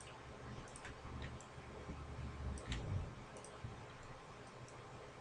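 Computer mouse button clicks, about eight scattered single clicks over several seconds, over a faint steady hum of the recording microphone.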